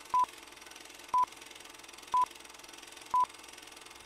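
Short electronic beeps at one steady pitch, four of them about a second apart, like a countdown, over a faint steady hiss.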